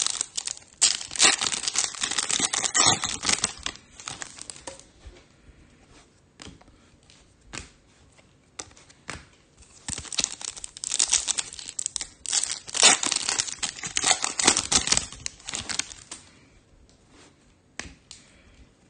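Trading-card pack wrappers and packaging torn open and crinkled by hand, in two long stretches of ripping and crackling of about four and five seconds, with scattered crinkles and clicks between them.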